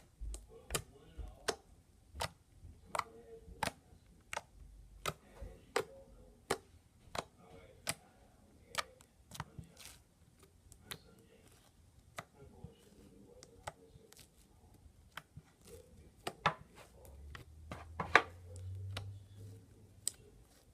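Slime being squeezed and poked by hand, giving sharp popping clicks from trapped air, about one every two-thirds of a second, with the loudest pop near the end.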